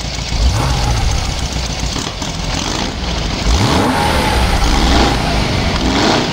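An engine running hard and revving, its pitch sweeping up several times over a steady loud rumble.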